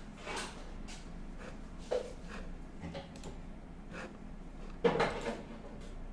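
A few scattered soft knocks and clicks, the loudest about five seconds in, over a faint low hum.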